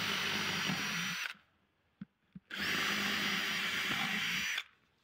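Electric drill boring holes through a thick wooden board: two runs of about two seconds each, the motor's whine rising as it spins up and holding steady, with a short pause between.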